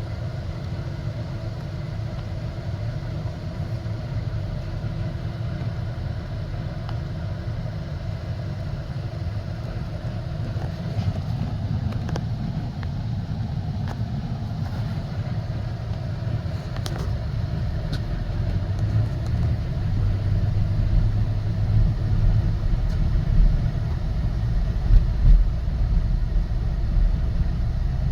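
Car driving, a steady low rumble of engine and road noise that grows louder in the second half, with a few louder thumps near the end.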